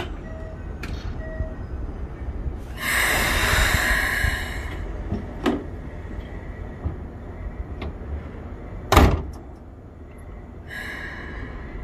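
Keikyū 1000-series commuter train's doors closing at the platform: two short chime tones at the start, a burst of hissing a few seconds in, then knocks and one sharp bang about nine seconds in, the loudest sound, over a low rumble.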